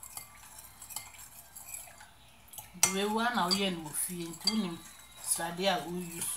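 Metal spoon stirring a thick mixture in a glass bowl, with light scraping and clinking against the glass. From about three seconds in, a woman's voice with long held notes comes in and is louder than the stirring.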